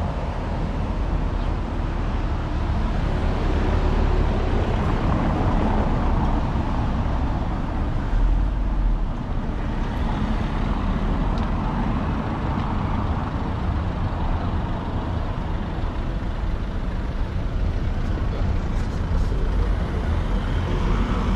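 Cars driving past on a cobbled town street, over a steady rushing background noise.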